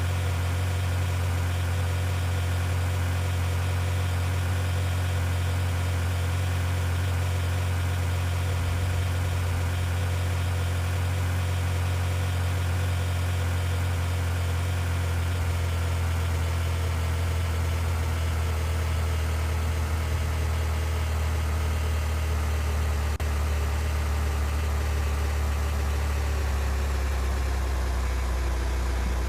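Car engine running with a steady low hum, its pitch easing down slightly near the end.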